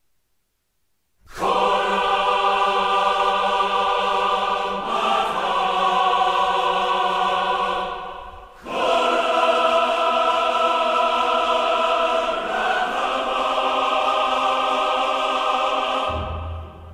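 Music: a choir singing long held chords in two phrases, starting after about a second of silence and cutting off near the end.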